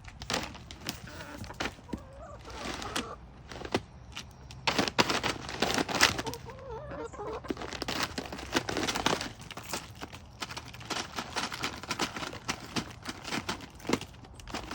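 Chickens clucking softly amid many sharp taps and clicks.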